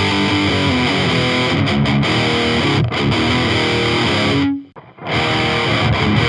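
Heavy distorted electric guitar riff played through a miked high-gain amp cabinet. About four and a half seconds in it breaks off for half a second, and the riff starts again through a different amp.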